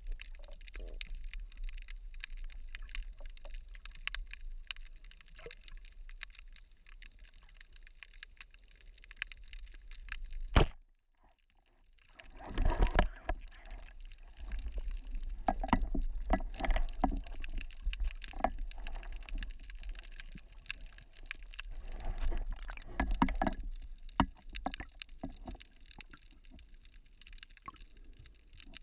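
Water heard underwater through a camera housing: a steady muffled wash with scattered small clicks. A sharp knock comes about ten seconds in, then the sound drops out for about a second. After that come louder bouts of sloshing and bubbling as the diver moves near the surface, and these ease off toward the end.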